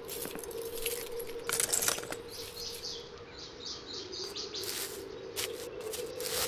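Outdoor ambience of small birds chirping in quick runs of short high calls, over a steady low hum.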